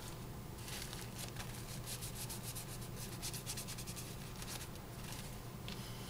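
Fingertip rubbing powder eyeshadow onto the skin of the arm to swatch it: faint, quick rubbing strokes in several spells, over a steady low electrical hum.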